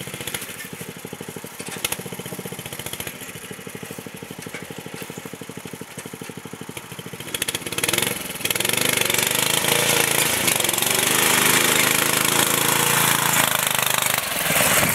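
Small engine of an off-road riding lawn mower idling with an even pulse, then revving up about eight seconds in and running at high revs.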